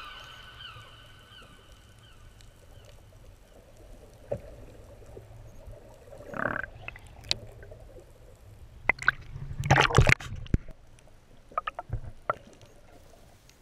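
Water sloshing and splashing around a camera held at the sea surface, muffled as it dips under. Sudden splashes about six seconds in and a louder cluster around ten seconds, over a low steady rumble.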